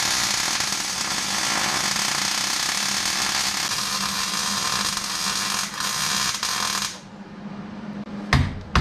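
Arc welder crackling and sizzling steadily for about seven seconds, then cutting off: a spinning captive nut on the control arm mount being welded in place so the seized bolt can be broken loose. A few sharp knocks follow near the end.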